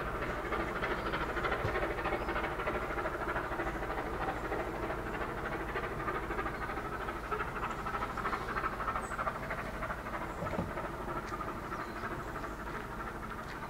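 Vale of Rheidol narrow-gauge steam train rolling past on the track: a steady rumble and rattle of carriage wheels, with some ringing tones from the wheels and rails, slowly fading as the train draws away.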